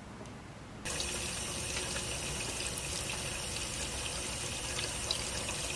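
Water tap running onto a bunch of grapes in a plastic colander, splashing steadily over the fruit; the flow starts about a second in.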